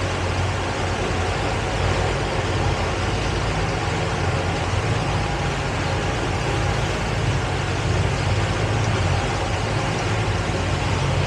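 Towboat's engine running steadily while the boat is underway, with an even rush of wind and water along the hull.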